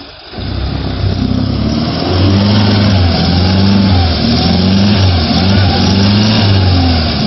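An off-road vehicle's engine running hard, its revs rising and falling again and again, after a brief dip in level at the start.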